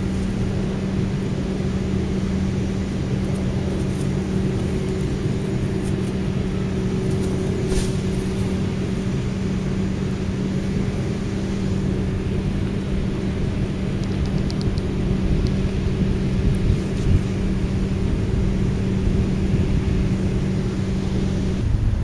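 A steady low rumble with a constant mechanical hum over it, which cuts off shortly before the end.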